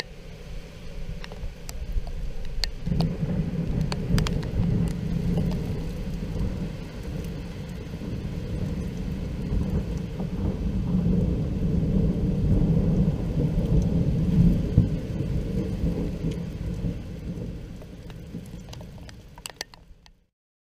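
Long rolling thunder from a lightning strike about 900 m away: a deep rumble that builds a few seconds in, swells and rolls on for over fifteen seconds, then dies away near the end.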